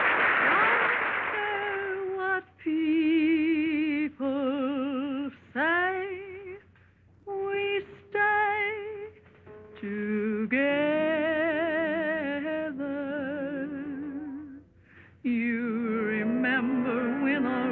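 Old black-and-white film musical soundtrack: after a loud opening passage, a woman sings short phrases of held notes with wide vibrato and a few upward swoops, with brief pauses between them and the band joining again near the end. The sound is thin, with no top end.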